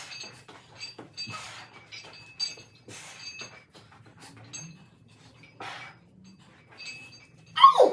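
Repeated light metallic clinks, each ringing briefly, and near the end one short, loud vocal sound that falls in pitch.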